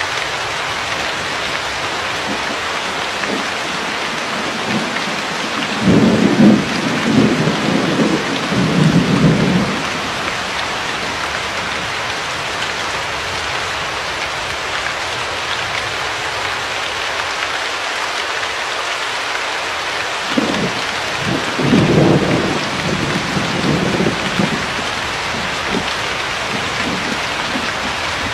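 Steady rain hiss with two rolls of thunder rumbling low beneath it, the first about six seconds in and lasting some four seconds, the second about twenty seconds in and lasting some five seconds.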